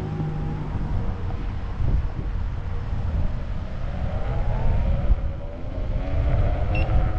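Wind rumbling over the microphone while riding a Begode A2 electric unicycle, with the hub motor's faint whine rising in pitch twice as the wheel speeds up.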